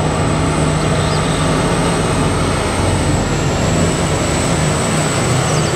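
BelAZ giant mining haul truck driving by: a loud, steady diesel engine drone with a thin high whine running over it.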